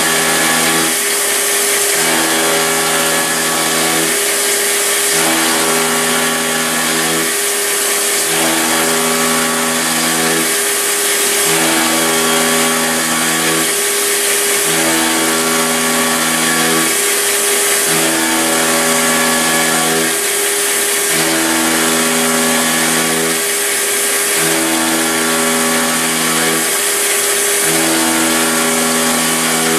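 CNC-converted milling machine cutting metal under mist coolant: a steady spray hiss over the running spindle, with stepper-motor tones from the axis drives that switch pitch about once a second in a repeating pattern as the tool path changes direction.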